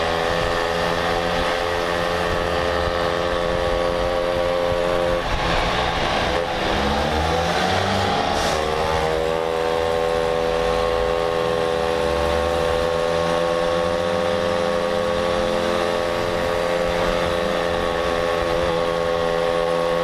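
Mobylette moped's small two-stroke engine running under way, its note dropping about five seconds in and rising again a few seconds later, then holding steady.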